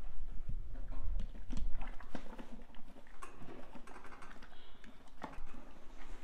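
Horse chewing feed from a pan, an irregular run of crunching clicks, with a low rumble in the first couple of seconds.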